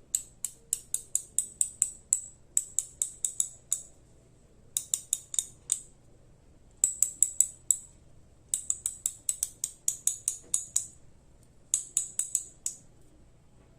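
Stanley Workmaster 86200 socket ratchet clicking as it is turned slowly, its pawl snapping over the gear teeth one at a time at about five clicks a second, in six runs with short pauses between them. The teeth are being counted, and the mechanism turns out to have 42 teeth.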